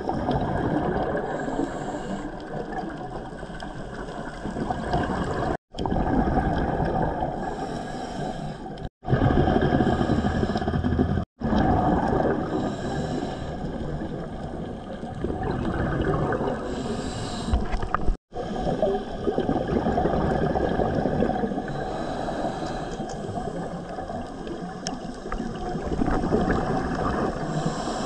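Underwater sound of a scuba diver's breathing through a regulator: hissing inhalations and bubbly exhalations every few seconds, heard through the camera housing. The sound drops out completely for a split second four times.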